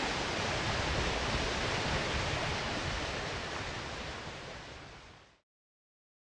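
Steady rushing outdoor noise, even and without any tone. It fades out over its last two seconds and stops dead about five and a half seconds in.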